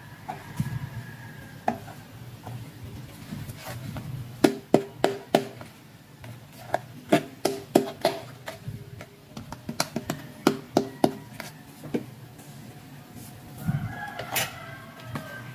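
Small hard plastic toy handbags and doll accessories clicking and tapping as they are handled, with a quick run of sharp clicks through the middle.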